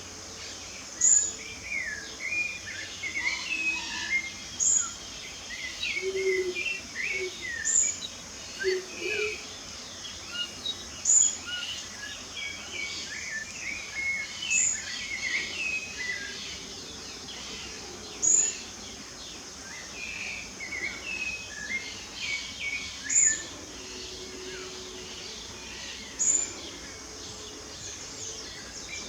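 A chorus of birds singing and chirping, with one bird repeating a short high note about every three seconds, over a steady high insect drone.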